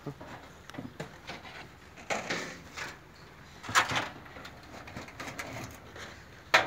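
Handling noises around a metal-topped table: scattered clicks and rustles, two brief rushes of noise about two and four seconds in, and a sharp knock just before the end.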